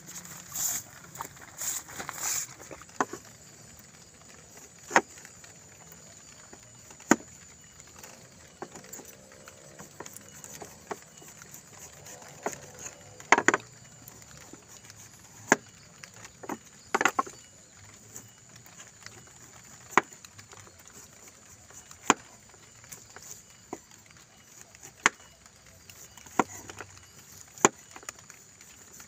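Kitchen knife cutting and peeling the tough skin of a whole breadfruit: sharp cuts and knocks come every couple of seconds, irregularly, with handling sounds in between.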